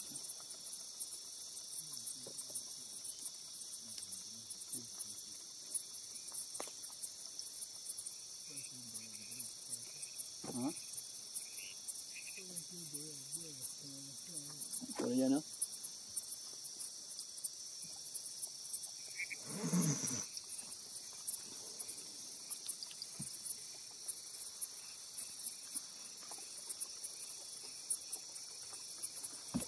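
Night insect chorus, a steady high-pitched drone. Fainter low sounds come and go beneath it, and a brief louder noise comes about twenty seconds in.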